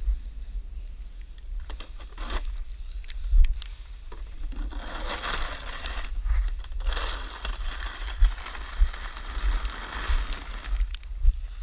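Snow shovel scraping and pushing through snow in two long strokes, with a few short knocks before them. Wind buffets the microphone as a low rumble throughout.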